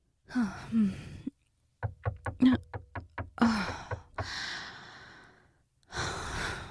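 A woman's breathing and sighing: short voiced sounds, then a quick run of about eight sharp taps or knocks about two seconds in. After that comes a long, breathy sigh, and a sharp breath near the end.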